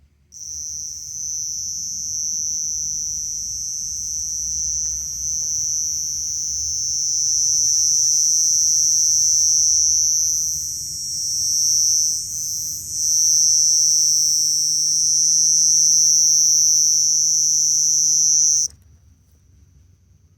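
Cricket singing a loud, continuous high-pitched trill. It starts just after the beginning and cuts off abruptly near the end, dipping briefly in level about two-thirds of the way through.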